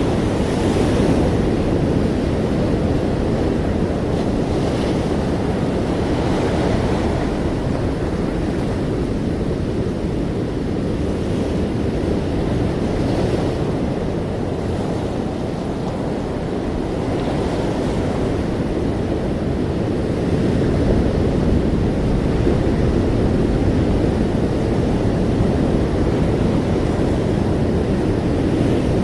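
Ocean waves breaking on the shore: a continuous deep rush of surf with gentle swells every few seconds, a little louder in the later part.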